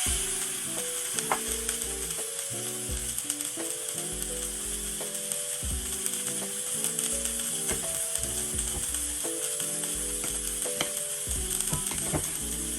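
Food sizzling steadily in a hot skillet, with a few light clicks of a utensil against the pan.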